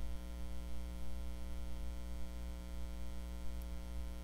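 Steady electrical mains hum and buzz in the recording: a low drone with a ladder of higher overtones, unchanging throughout.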